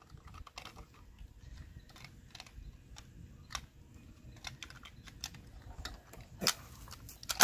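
Small plastic toy vehicles and figures clicking and knocking against each other and a wooden tabletop as they are handled, in light irregular taps, with a louder knock about six and a half seconds in and a sharper one at the very end.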